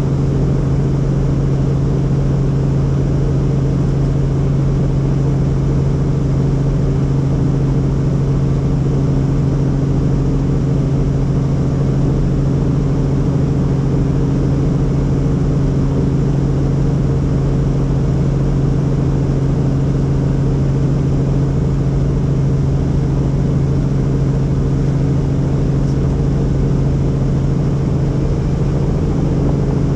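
Helicopter in flight: steady, loud drone of engine and rotors with a strong, unchanging low hum.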